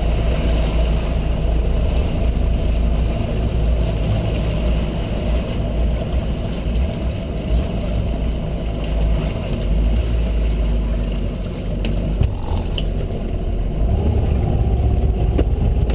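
Boat motor running steadily, a low rumble mixed with wind and water noise, with a couple of light clicks about twelve seconds in.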